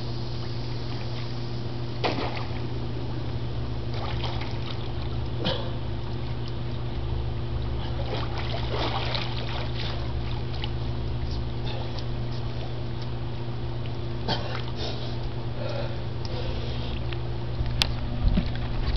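Liquid splashing and sloshing in scattered small bursts over a steady low hum.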